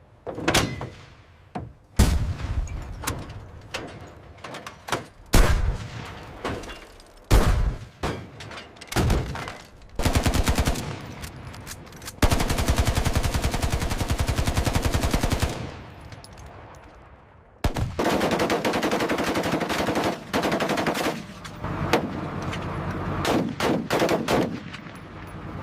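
Gunfire: a series of single heavy shots, each trailing off with a long echo, then two long bursts of rapid automatic fire about halfway through.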